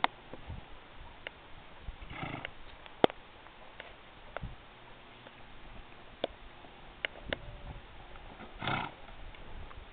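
American Quarter Horse mare moving under a rider on a dirt arena: scattered hoof thuds and clicks, with two short snorts, one about two seconds in and one near the end.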